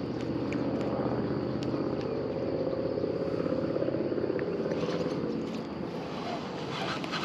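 A boat engine running steadily at low speed, a low hum with a rapid even pulse that eases off a little after about five seconds.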